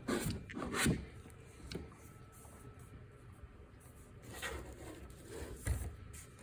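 Light knocks and clicks of the sander's parts being handled: a few sharp ones in the first second, then softer scattered sounds later on.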